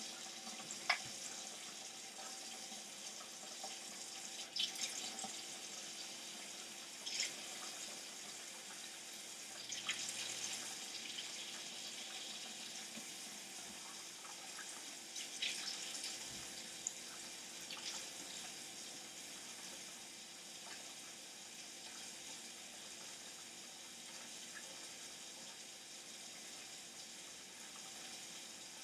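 Kitchen tap running steadily into the sink, a faint even hiss, with a few light clicks and knocks from handling scattered through it.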